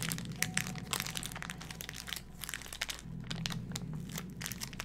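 Plastic piping bag filled with icing crinkling and crackling irregularly as it is squeezed and twisted at the top to push the icing down toward the tip.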